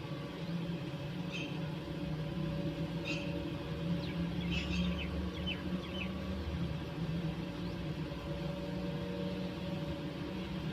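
Sparrows giving brief high chirps: single chirps about a second and three seconds in, then a quick run of several chirps near the middle, over a steady low hum.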